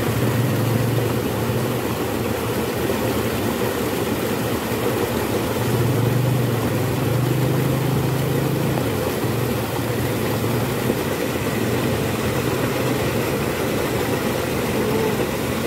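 Fast water rushing and churning through a narrow irrigation channel: a steady, unbroken roar, heaviest in the low end.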